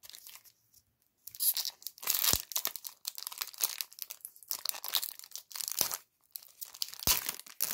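Foil booster-pack wrapper crinkling and tearing as it is ripped open by hand, in a run of irregular crackles with a few sharper snaps, starting about a second in.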